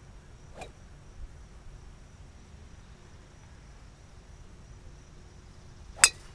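Golf club striking a teed-up ball: one sharp, loud crack near the end, over a faint steady high drone.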